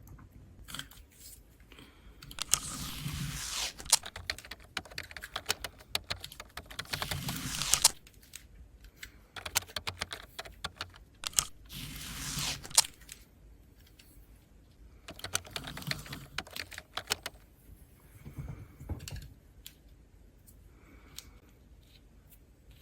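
Close-miked foley of small objects being handled: four spells of scratchy rustling peppered with sharp clicks, each one to two seconds long, followed by a few fainter taps.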